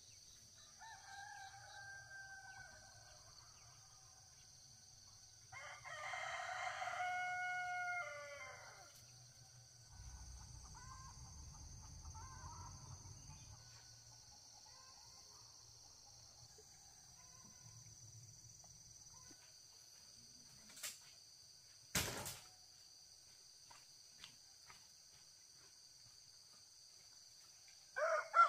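A rooster crowing, a shorter call about a second in and a longer, louder crow around the middle of the first third that drops in pitch at its end, over a steady high drone of insects. Two sharp knocks come about three-quarters of the way through.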